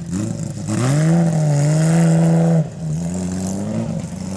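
Porsche 997 GT3's flat-six engine revved hard: the revs climb within the first second, hold high for about a second and a half, then drop suddenly to a lower steady note. The rally car is stuck in a soft ploughed field after going off the road and is being driven out.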